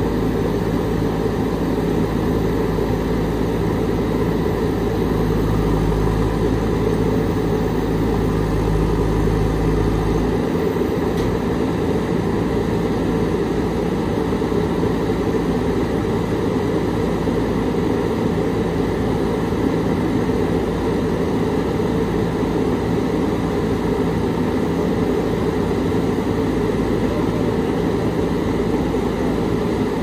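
Diesel engines of JCB backhoe loaders running steadily as their hydraulic arms dig. A deep low rumble drops away about a third of the way in, while the rest of the engine noise carries on unchanged.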